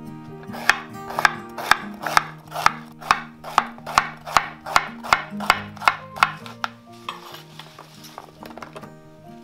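Chef's knife chopping pear into chunks on a wooden cutting board: a steady run of sharp knocks, about two to three a second, that stops about two-thirds of the way through.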